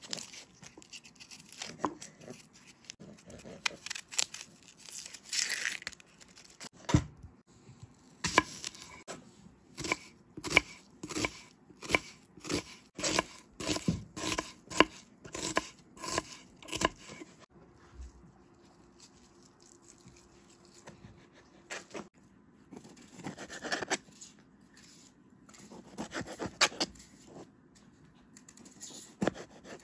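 A kitchen knife peeling the dry, papery skin off an onion with crackly tearing. Then the knife chops through onion onto a wooden cutting board in a steady run of sharp knocks, about two a second. Near the end come softer knife cuts through tomato on a plastic board.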